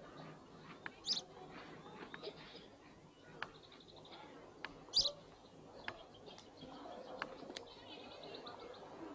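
Birds chirping: scattered short high calls, with two louder chirps about a second in and about five seconds in, and a quick trill near the end.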